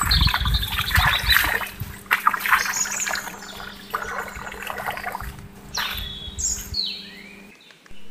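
A thin stream of water trickling and splashing from a miniature hand pump's spout into a small plastic pond, with birds chirping now and then. The sound drops away shortly before the end.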